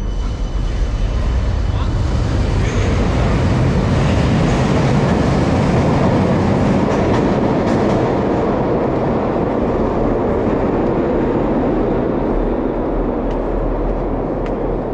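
Underground light-rail tram running through the station tunnel: a loud, steady rumble that eases off a little in the second half.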